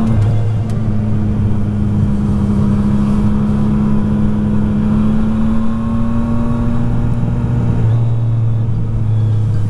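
Yamaha MT-09 motorcycle's three-cylinder engine running at a steady pace while riding, its note holding nearly level.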